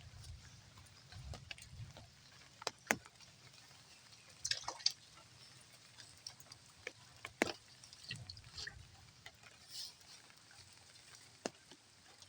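Small water splashes and drips, with scattered sharp clicks over a low rumble.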